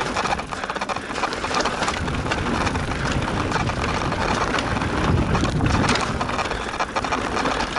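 Cannondale Habit mountain bike riding fast over a rocky dirt trail: steady tyre noise on dirt and gravel, with a constant run of small rattles and knocks from the bike, and wind on the microphone.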